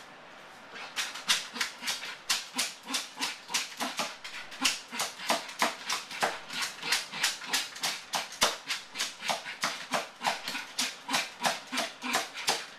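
Yorkshire terrier at the front door in separation distress, making a fast, even run of short raspy strokes, about four a second, starting about a second in.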